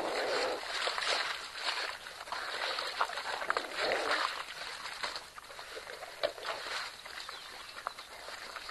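A pack of African wild dogs feeding on a freshly killed impala, scuffling and tearing at the carcass with many short sharp clicks and crackles, louder in the first half.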